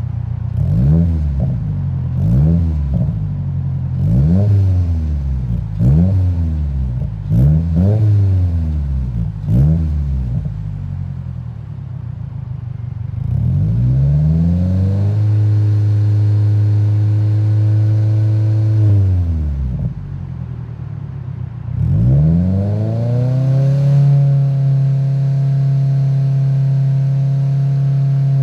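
2022 Subaru WRX's 2.4-litre turbocharged flat-four revving through a Remark R1 titanium catback exhaust: about six quick blips of the throttle, then two longer revs that climb, hold steady for a few seconds and fall away, the second dropping near the end.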